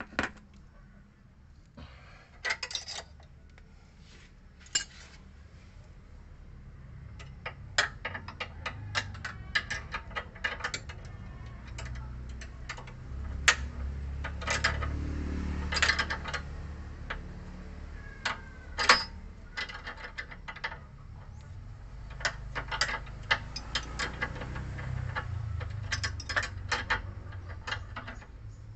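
Steel hand tools clicking and clinking against the nuts and stud of a Ford EcoSport's front stabilizer link as a ring spanner is worked on the link; irregular sharp metallic clicks, a few of them loud, over a low rumble that swells in the middle and again near the end.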